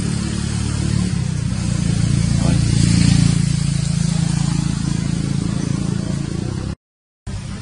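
A steady low engine hum with no change in pitch, broken by a moment of dead silence near the end.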